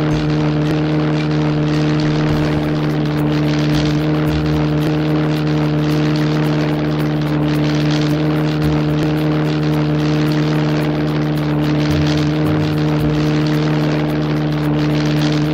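Single-engine propeller airplane's engine running steadily, an even drone that holds one pitch throughout.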